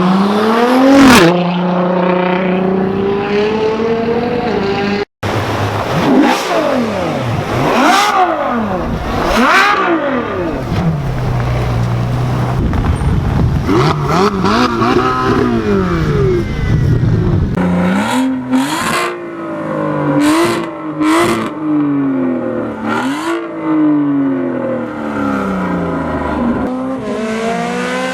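Supercar engines revving hard and accelerating, the pitch climbing and falling again and again with each rev and gearchange. The sound drops out for an instant about five seconds in, and in the second half several sharp cracks come between short revs.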